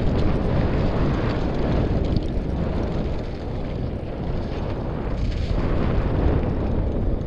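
Wind buffeting a helmet-mounted camera's microphone during a fast mountain-bike descent, a continuous low rumble mixed with knobby tyres rolling over a dirt and gravel trail.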